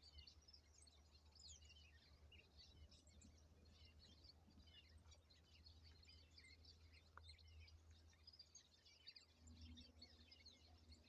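Faint chorus of many small birds chirping and twittering continuously over a steady low rumble. A faint low hum joins near the end.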